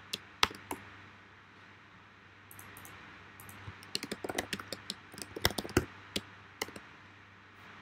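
Typing on a computer keyboard: irregular runs of key clicks, a few in the first second, then a longer run of typing after a short pause.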